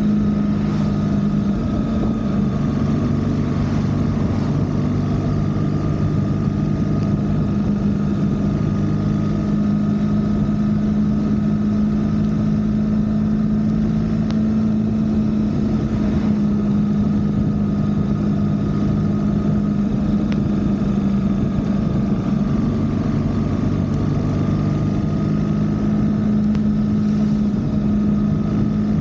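BMW R1300GS Adventure's boxer-twin engine running at a steady cruise, with constant wind and road noise. The engine note holds nearly level, shifting only slightly a few times.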